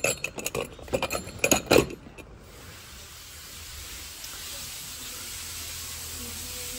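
Clinks and knocks of a cut-glass jar and its metal-rimmed lid being handled for about two seconds, then a steady hiss that slowly grows a little louder.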